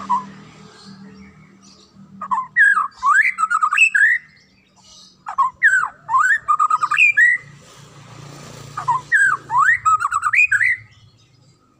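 White-rumped shama singing loud, clear song: three runs of quick swooping whistled notes, each about two seconds long, separated by short pauses.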